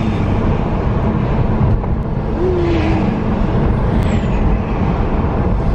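Steady road and engine rumble inside a moving car's cabin, with yellow school buses going past in the opposite lane.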